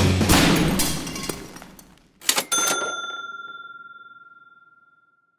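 Rock music dies away over about two seconds. Then come two sharp hits a fraction of a second apart, followed by a single clear ringing ding that fades out over about three seconds.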